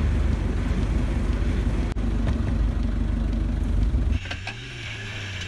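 Nissan Patrol GR's engine idling close by, a steady low rumble; a little after four seconds in it drops to a quieter, thinner running sound.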